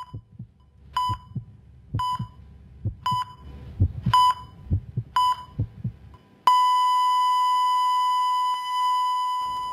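Heart-monitor (ECG) sound effect: a beep about once a second, six times, over low heartbeat thumps, then a long unbroken flatline tone from about two-thirds of the way in, fading near the end. The flatline signals cardiac arrest, a life lost.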